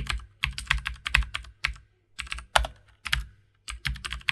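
Rapid sharp taps in quick runs of a few strokes each, every tap with a dull low thud beneath, with short pauses between the runs.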